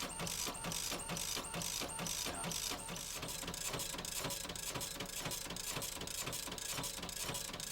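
Dot-matrix printer printing out track-measurement correction data: a rapid, even stream of mechanical clicks with a faint repeating accent about twice a second.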